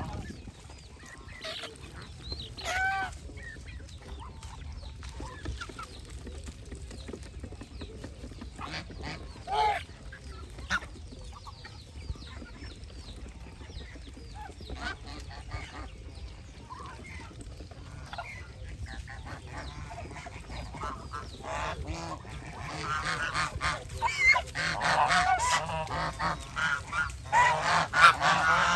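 Domestic geese honking: scattered single calls at first, then many geese calling together in a louder, overlapping chorus over the last few seconds.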